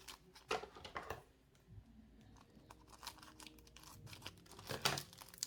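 Packaging crinkling and rustling as it is handled: a scatter of short crackles with pauses between, the loudest near the end.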